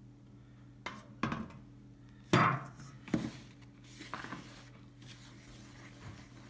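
Kitchen clatter of a stainless steel mixing bowl and a wooden spoon against a plastic bowl while a liquid is poured into flour and stirred for dough: about six short knocks and clinks, the loudest about two and a half seconds in. A faint steady hum sits underneath.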